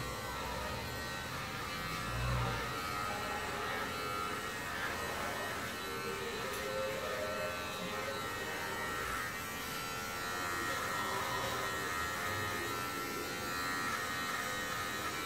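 Electric hair clippers running with a steady buzz.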